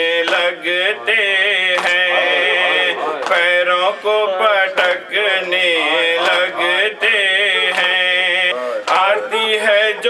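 A man chanting a nauha, a Shia mourning elegy in Urdu, in a slow, melodic voice into a microphone, drawing out long held notes.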